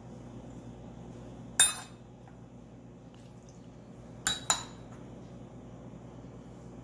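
Stainless steel prep cups and a stainless mixing bowl clinking together as ingredients are tipped into the bowl. There are three sharp, ringing clinks: one about a second and a half in, then two quick ones a little after four seconds.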